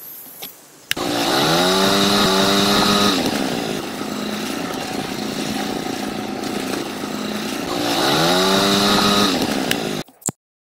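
Small electric motor of a miniature crane winch, whining as it spins up about a second in, running steadily, spinning up again near eight seconds, then cutting off suddenly.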